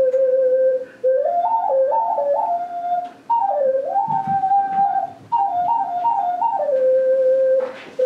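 Handmade clay salamander-shaped ocarina played in a slow melody of clear, pure stepped notes, moving up and down within a narrow range, in short phrases broken by quick breaths about every two seconds.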